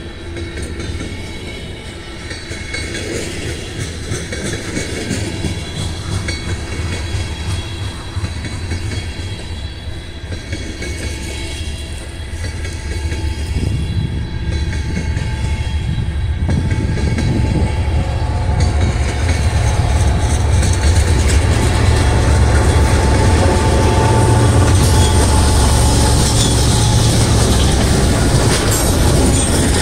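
Freight trains passing: a train of covered hopper cars rolls by on the near track while BNSF diesel locomotives leading an intermodal train approach and go past, their engine rumble swelling to its loudest in the second half.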